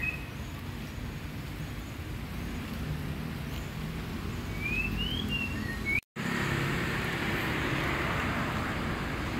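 Outdoor ambience of a steady low rumble of road traffic, with a few short rising bird chirps about five seconds in. The sound drops out briefly at an edit about six seconds in and comes back as a brighter, even noise.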